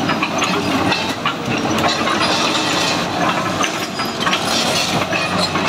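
Hitachi ZX210 hydraulic excavator travelling on its steel crawler tracks: the diesel engine runs steadily under a constant rattle of knocks and clanks from the track links and rollers.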